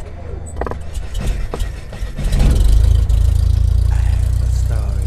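Logo-reveal sound effects: a few sharp clicks and crackles, then a deep, steady rumble that swells about two seconds in and holds, loud.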